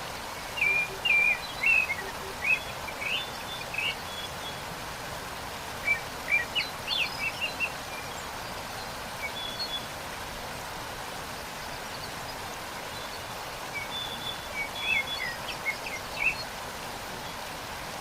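Waterfall rushing steadily, with a small songbird singing three bursts of quick, high chirps: one near the start, one about six seconds in, and one near the end.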